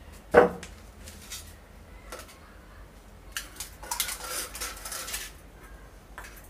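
Stainless-steel bowls and plates clinking against each other and the concrete floor as small bowls are set down beside plates of rice. One loud clank with a short ring comes about half a second in, then a few light clicks, and a stretch of clattering from about three and a half to five seconds.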